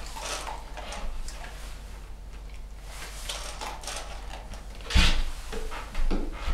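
Wooden wobble board knocking and rattling under a dog as it stands on it eating kibble, with light clicks and clinks of kibble and a steel bowl; a heavy thump about five seconds in and a smaller knock about a second later.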